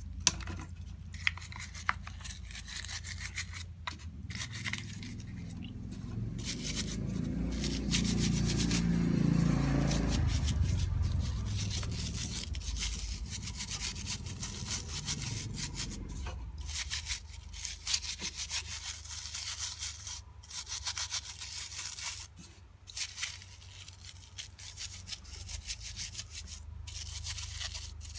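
A stiff green-bristled brush scrubbing the body of a disassembled Walbro carburetor in a pot of cleaning fluid, in quick rasping back-and-forth strokes. A low rumble swells up in the middle and fades out again.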